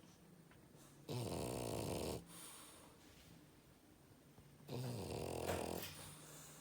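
French bulldog snoring: two loud snores, each about a second long, the second starting about three and a half seconds after the first.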